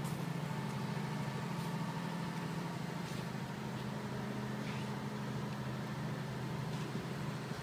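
50 kVA diesel generator set in a super-silent soundproof canopy running steadily: a low, even hum, heard from several metres away. A few faint clicks sound over it.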